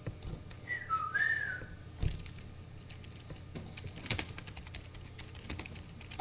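A short wavering whistle about a second in, then a run of computer keyboard key clicks as a message is typed, busiest in the middle.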